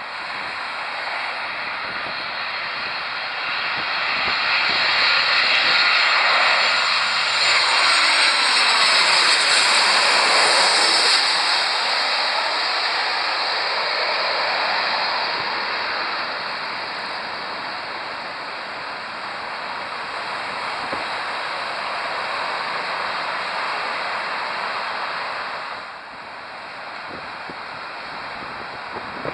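Boeing 737 twin-engine jet airliner on final approach, passing low overhead. The jet noise builds over the first few seconds and is loudest about eight to eleven seconds in, with a sweep that falls and then rises as it goes over. It then fades away, and road traffic is left near the end.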